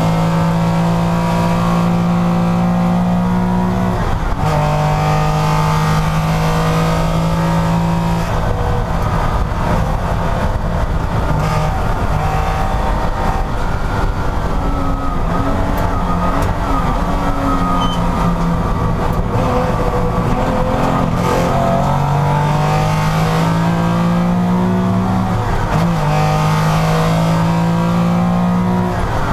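Porsche racing car engine at high revs on track. Its pitch climbs steadily through each gear and drops sharply at the upshifts, once about four seconds in and twice near the end. In the middle stretch the revs rise and fall more unevenly.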